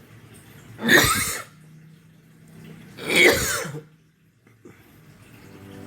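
A person coughing twice, about two seconds apart.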